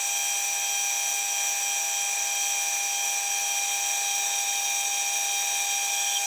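Myford ML7 lathe running and turning down a steel bar, the tool cutting along it: a steady, even, high-pitched whine of several constant tones over a cutting hiss.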